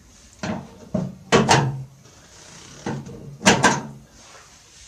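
Plastic clicks and knocks from prying at the snap-on decorative cover over an Ariston Hotpoint ARSF 125 washing machine's drain filter, a stiff cover held by plastic latches. Several sharp clicks, the loudest about a second and a half and three and a half seconds in.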